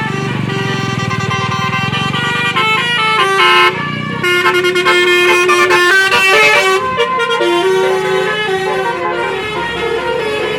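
Indonesian bus 'telolet' Basuri musical air horn playing a tune of quickly changing notes, loudest about midway. A bus engine runs underneath during the first few seconds.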